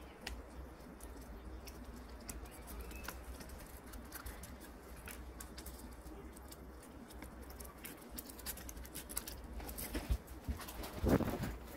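Origami paper being creased and folded by hand: soft scattered crinkles and ticks of the paper, with a few louder handling knocks near the end.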